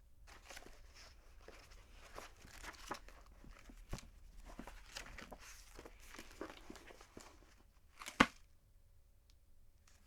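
A book being handled: pages rustling and turning in soft paper strokes, then one sharp knock about eight seconds in.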